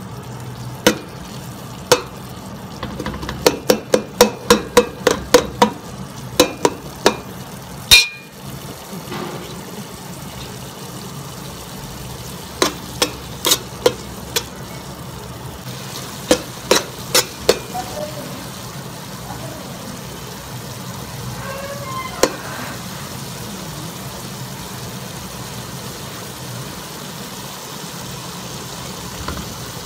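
Sliced onions sizzling in oil in a metal pot, with a steady hiss. A metal spoon stirring them knocks and scrapes against the pot in quick runs of sharp clinks, the loudest about eight seconds in.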